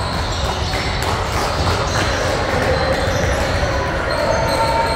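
Gym game ambience in a large echoing hall: indistinct voices from players and spectators with scattered ball bounces and thuds.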